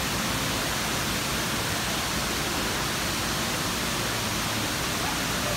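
A 24-metre indoor wall waterfall, water pouring continuously down its face in a steady, even rush.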